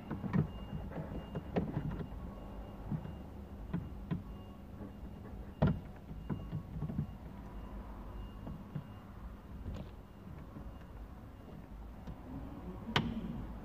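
Scattered clicks, knocks and rustles of plastic interior trim and wiring being handled around a car's A-pillar and headliner, with a sharper knock about halfway through and another near the end.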